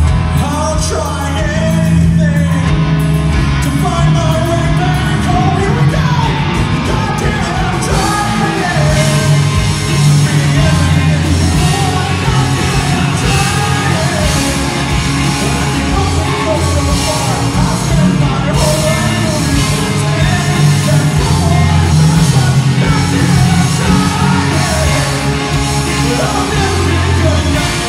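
Live rock band playing loudly: electric guitars and drums, with a man singing lead.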